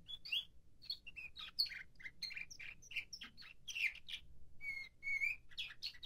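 Nightingale-song canary singing in its song-training (tertip) period: a fast run of short, varied chirps, trills and gliding notes, with a longer low whistle about five seconds in.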